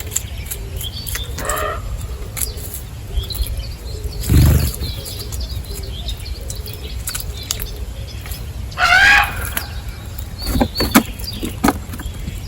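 Birds at a feeder: wings flapping, with short chirps and a loud call lasting about half a second, about nine seconds in.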